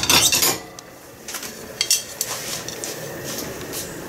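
Clatter and clinks of kitchenware as a glass pot lid is picked up from a dish rack: a loud clatter at the start, then a few light clinks.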